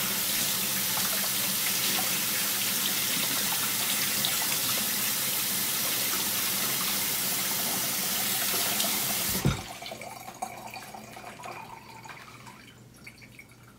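Kitchen faucet running steadily while the mesh of a Keurig charcoal water-filter holder is rinsed under it; the water stops with a knock about nine and a half seconds in, leaving faint small sounds.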